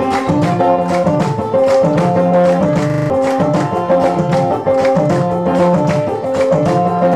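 Eritrean dance music played live on an amplified krar, a plucked lyre, over a steady, even beat.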